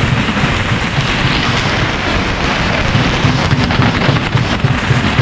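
A long string of firecrackers going off in a continuous, dense crackle of rapid pops.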